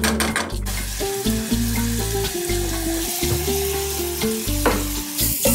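Butter and minced garlic with jalapeño sizzling as they fry in a small saucepan. The sizzle starts about half a second in, once the garlic goes into the hot butter.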